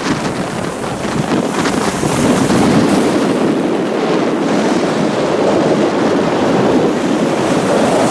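Rough sea waves breaking and surging, with wind blowing on the microphone; the rush grows a little louder about two seconds in.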